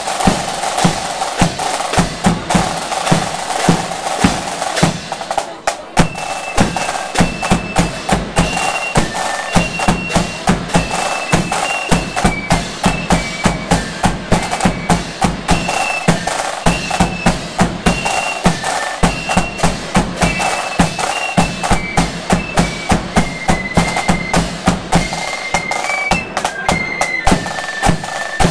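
A marching flute band playing: side drums, a bass drum and clash cymbals beat out a steady march rhythm. About six seconds in, the flutes come in with a high tune in unison over the drums.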